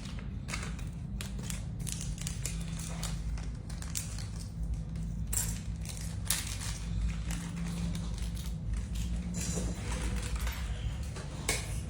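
Irregular sharp clicks and rustles of small objects being handled, over a steady low hum.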